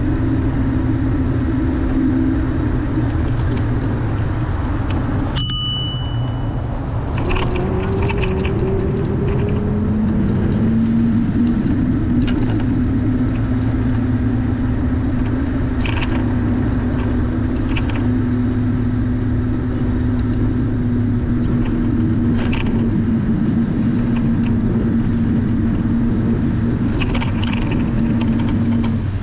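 A car driving at city speed: a steady engine drone with road noise, its pitch shifting about ten seconds in. A single short, bright ding rings out about five and a half seconds in.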